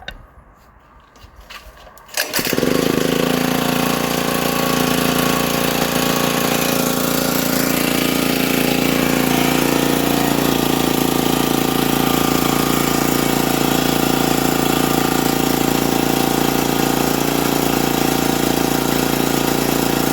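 Champion 4,000-watt generator's 224 cc engine starting after a few faint knocks, catching about two seconds in and then running steadily at an even speed.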